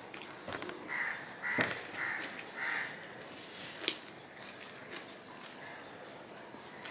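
A crow cawing four times in quick succession, about one to three seconds in, followed by a short sharp click.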